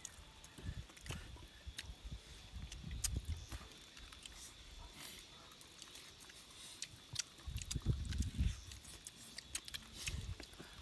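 People eating with their hands: chewing and biting into boiled corn on the cob, with scattered small clicks and a few clusters of low, muffled thumps.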